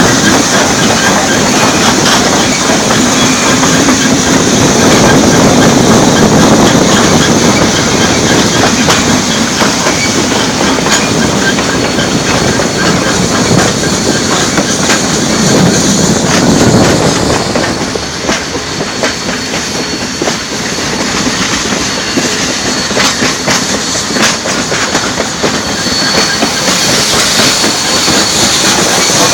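Train rolling along, its wheels clattering rhythmically over the rail joints in a loud, steady run that eases off briefly about two-thirds of the way through.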